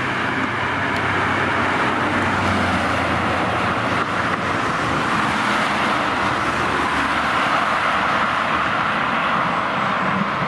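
Ferrari GTC4Lusso driving past and pulling away up a winding road, its engine, exhaust and tyres a loud, steady rush, with more cars coming up behind near the end.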